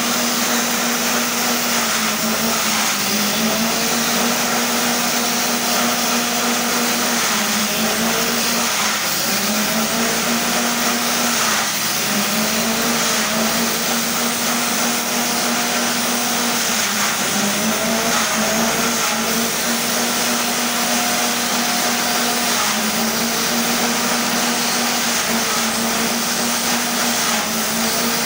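Forage chopper driven by a small petrol engine, running fast and shredding grass stalks as they are fed in, with a steady hiss of cutting. The engine note sags briefly about five times as stalks load the blades, then picks back up.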